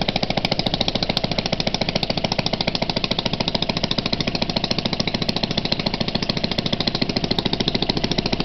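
Maytag Model 72 twin-cylinder two-stroke engine, its governor removed and a McCulloch chainsaw carburetor fitted so it can be throttled, running steadily at speed with a propeller pushing air. It fires in a rapid, even beat.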